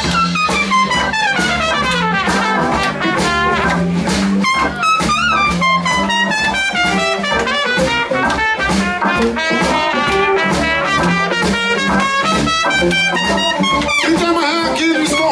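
Live blues-rock band playing an instrumental passage: a horn solo in quick melodic runs over bass, drums and guitar.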